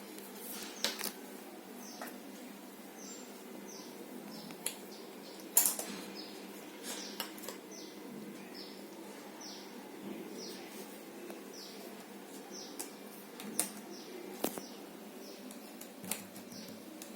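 Jigsaw puzzle pieces clicking and tapping now and then, with one sharp click about five and a half seconds in. Behind them a bird chirps over and over in short falling notes, about one or two a second.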